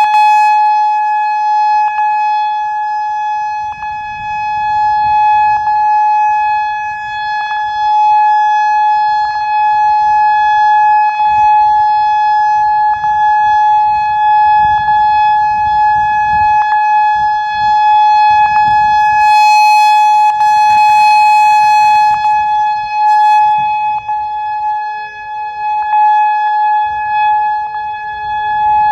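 Whelen 3016 electronic outdoor warning siren sounding a loud steady tone, held at one pitch with strong overtones. A faint click recurs about every two seconds.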